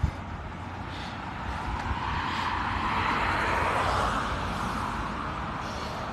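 A vehicle passing by: a steady rushing noise that swells to a peak about three seconds in and then slowly fades.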